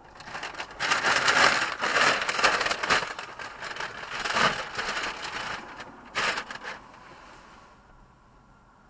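Close rustling and crinkling, something being handled near the microphone, with crackly clicks. It runs from just after the start to about seven seconds in, with a short separate burst just after six seconds, then stops.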